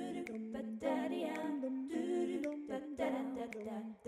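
Wordless a cappella singing: hummed or sung vowels in short held phrases of about a second each, with a slight vibrato.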